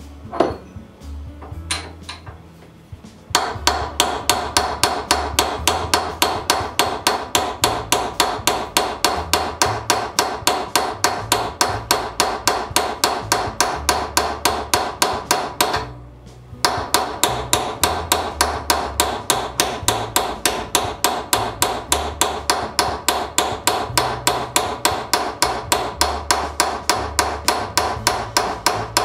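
Hammer tapping a diamond point cold chisel that is cutting a V groove into a steel bar held in a vise, raising a chip. The light, sharp metallic strikes come quickly and evenly, about three a second, starting a few seconds in, stopping briefly about halfway, then carrying on.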